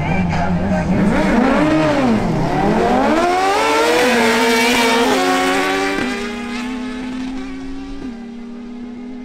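Two inline-four superbike engines, a Honda CBR1000RR and a Suzuki Hayabusa, launching in a drag race. They are held at high revs on the line, then the revs drop and climb hard through several quick upshifts. The sound fades as the bikes pull away down the strip.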